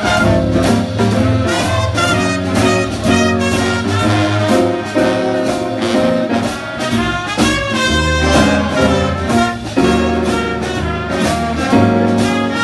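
Jazz big band playing live, an instrumental passage with no vocal: trumpets and trombones over saxophones, a walking double bass, keyboard and drum kit keeping a steady beat.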